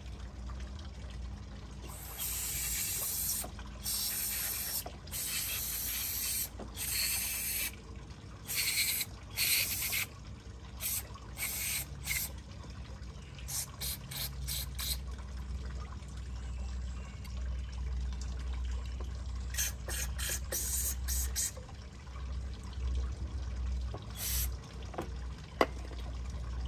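Aerosol carburetor cleaner sprayed onto a varnished carburetor in a series of hissing bursts. The first few last about a second each and the later ones are short and quick. A sharp click comes near the end.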